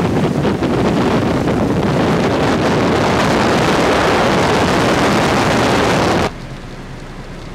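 Heavy rain pouring down in a loud, dense rush, with wind noise on the microphone. About six seconds in it drops suddenly to a much quieter, steady rain hiss.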